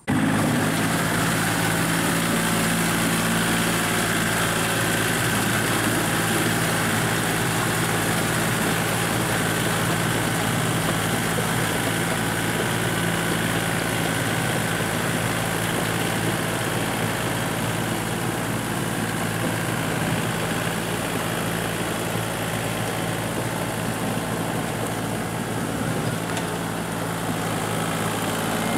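Compact Kubota tractor's diesel engine running steadily while it drives a rear rotary tiller through a muddy rice paddy.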